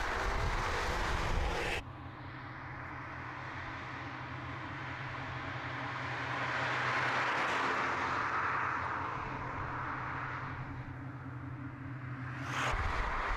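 Loud wind and road rush that cuts off abruptly about two seconds in, then a Volkswagen Golf R Mk8.5's turbocharged 2.0-litre four-cylinder driving by: a steady low engine hum with tyre noise that grows to a peak about seven seconds in and then fades.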